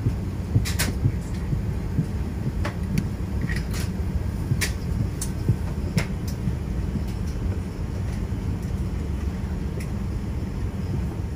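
Airbus A380 passenger cabin during the slow taxi to the gate: a steady low rumble from the airliner, with scattered sharp clicks and knocks from inside the cabin.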